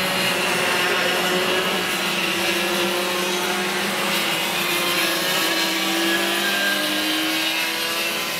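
Several racing go-kart engines running at high revs, a steady tone mixed with pitches that slide up and down as the karts pass and drive through the corners.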